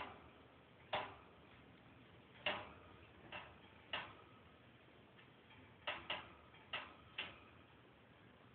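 Kittens playing, with a string of sharp, irregularly spaced clicks and taps, about nine in all, some with a brief ring.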